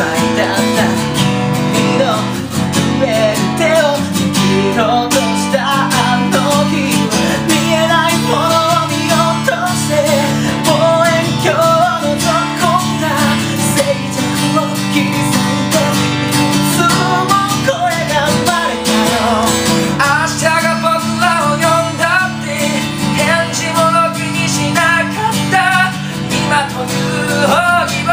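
Acoustic guitar strummed in steady chords while a man sings in Japanese over it.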